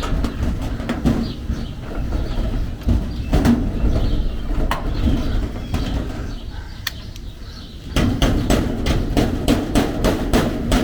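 Irregular light clicks and knocks of hand work on a thin sheet-metal shed door while a hasp and rivets are being fitted, over a steady rumble of wind on the microphone.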